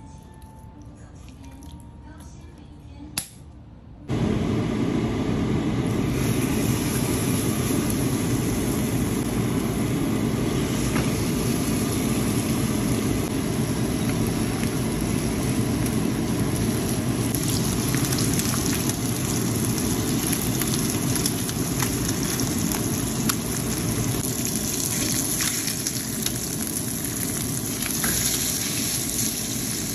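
Chicken thighs sizzling in a dry frying pan as the skin renders out its own fat, a steady loud hiss that starts suddenly about four seconds in after a few quiet seconds with a single click.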